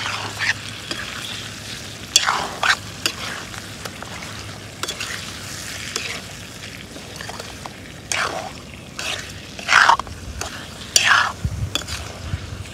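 Food sizzling in a cooking pan while being stirred, with irregular scrapes and knocks of the utensil against the pan.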